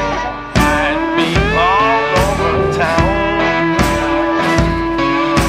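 Rock music with a steady drum beat and guitar.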